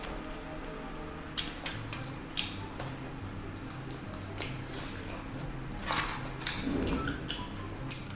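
Close-up eating sounds: chewing and biting into crispy fried chicken, with irregular sharp wet smacks and crunches.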